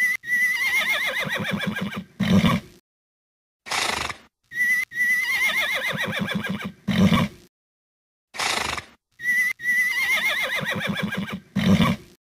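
Looped horse neigh sound effect, played three times about every four and a half seconds. Each time a short breathy burst comes first, then a whinny that starts high and wavers as it falls, then a short low blow.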